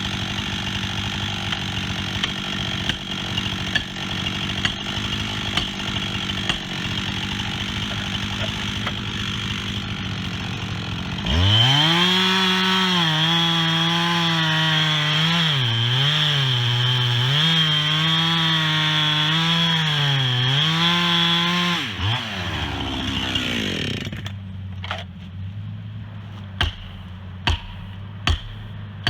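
Chainsaw idling, then throttled up about a third of the way in and cutting into a tree for about ten seconds, its pitch dipping and recovering as it bogs under load in the wood. It then winds back down. Near the end come several sharp knocks about a second apart.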